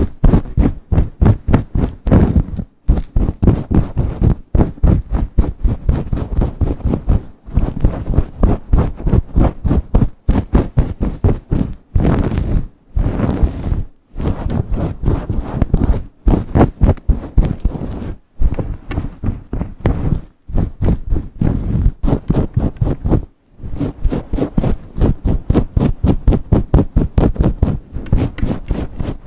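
Fast, vigorous rubbing and scratching of fingertips and long nails through hair against the scalp, several strokes a second with brief pauses.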